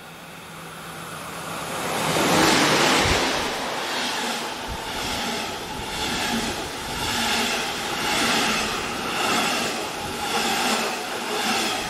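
Locomotive-hauled train of double-deck passenger coaches passing at speed: a rushing of air and wheels on rail that builds to its loudest as the locomotive goes by a couple of seconds in. After that it swells and fades about once a second as each coach passes.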